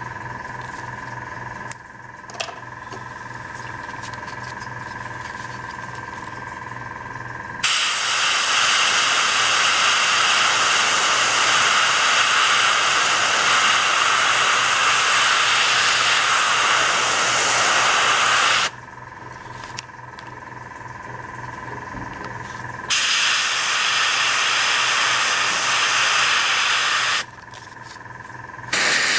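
A 0.2 mm dual-action, gravity-fed airbrush spraying paint in three sharp-edged bursts of hiss. The first runs about eleven seconds, the second about four, and the third starts just before the end. A quieter steady hum fills the pauses between bursts.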